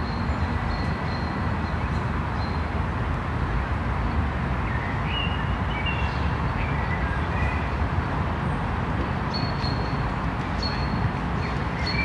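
Outdoor ambience: a steady low rumble, with birds chirping now and then, and a short high note repeating near the start and again near the end.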